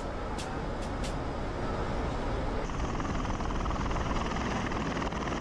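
Bell Boeing V-22 Osprey tiltrotor flying in helicopter mode: its proprotors and twin turboshaft engines make a steady, heavy rumble, with a higher rushing hiss joining about halfway through.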